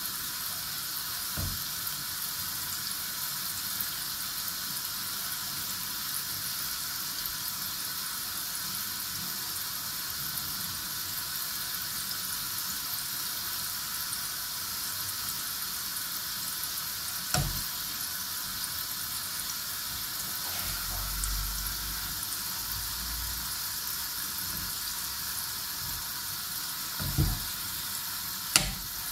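Gulab jamun balls deep-frying in a pan of hot oil, a steady sizzle, with a few brief knocks.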